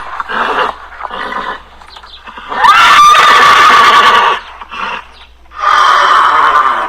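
A farm animal calling several times. The loudest is a long call about three seconds in that rises in pitch and then holds steady, and another long call follows near the end.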